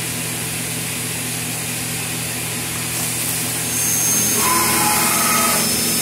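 CNC vertical milling machine running with its coolant nozzles spraying at the spindle: a steady hiss over the machine's hum. The hiss grows louder near the end, and a brief whine comes in about four and a half seconds in.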